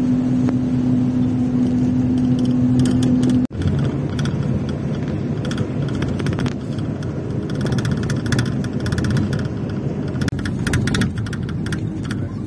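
Engine and road noise heard from inside a moving vehicle's cabin: a steady low rumble with an engine drone for the first few seconds, then broken up by frequent light rattles and clicks.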